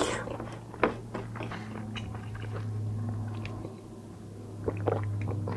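A person chewing and biting food close to the microphone: scattered wet mouth clicks, one sharper about a second in and a small cluster near the end, over a steady low hum.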